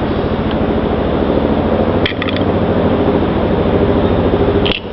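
A 1981 Briggs & Stratton small engine running steadily, its firing pulses even. About two seconds in and again near the end the sound dips briefly, with a few light clicks.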